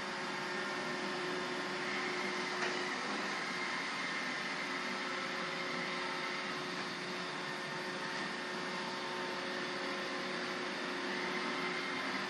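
iRobot Roomba robot vacuum running: a steady motor whir with a few held tones, and a brief click about two and a half seconds in.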